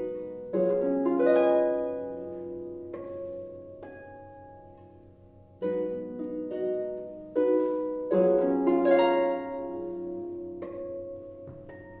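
Concert harp played solo: rolled chords and quick runs of plucked notes, each group ringing on and slowly fading. There are two louder swells, near the start and about two-thirds of the way through.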